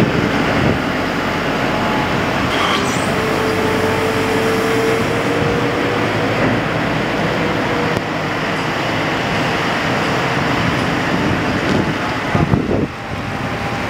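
JLG 1255 telehandler's diesel engine running as the machine drives past on wet pavement, blended with a steady wash of road traffic noise. A faint whine rises slightly a few seconds in.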